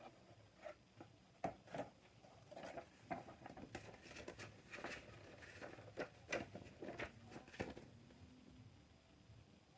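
Faint, irregular clicks and light rustling of plastic model-kit parts being handled and snapped together, thinning out near the end.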